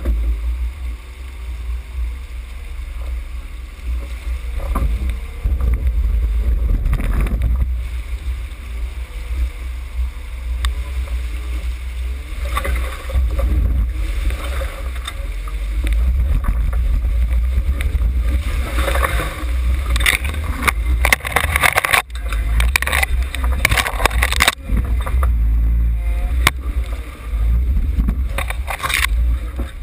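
Jeep Wrangler JK fording a fast, rocky river: a steady low rumble of engine and rushing water. From about halfway through, repeated splashes of spray hit the camera, thickest in the last ten seconds as the Jeep climbs out onto the bank.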